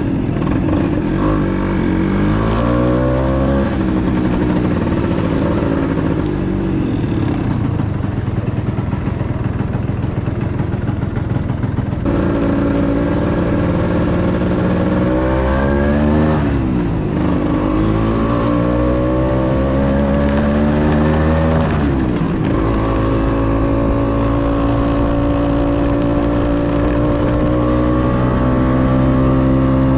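Scooter engine running under way, its pitch rising as it accelerates and falling off sharply a few times (about 3, 16 and 22 seconds in) before climbing again.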